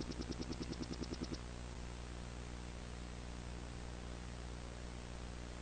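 Rapid pulsing ticks, about ten a second, stop about a second and a half in. Only a steady hiss with a low hum from an old taped TV broadcast remains.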